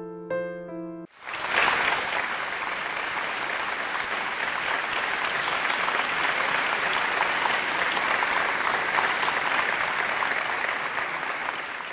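A few electric piano notes cut off about a second in, and a crowd's applause starts at once, clapping steadily and tapering off near the end.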